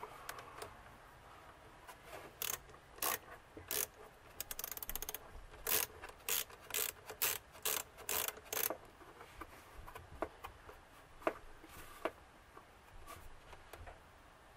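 Small hand ratchet clicking as it tightens the hose clamp on a cold air intake's rubber coupler. A run of quick clicks comes a couple of seconds in, followed by a few scattered ticks.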